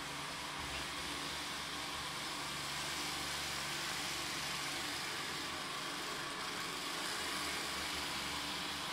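Vorwerk VR200 robot vacuum running steadily as it drives across a wooden floor: a constant suction-fan hiss with a low hum, getting slightly louder as it comes closer.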